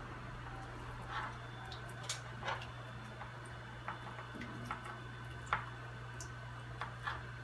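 Kitchen knife cutting fresh white cheese on a plastic cutting board: irregular light taps of the blade against the board, the sharpest about five and a half seconds in, over a steady low hum.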